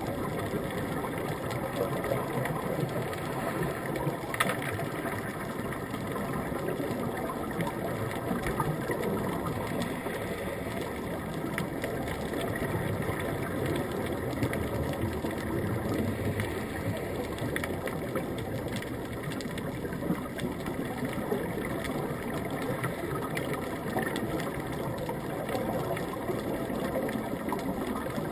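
Underwater ambient noise picked up through a GoPro's waterproof housing: a steady muffled rumble with faint scattered clicks.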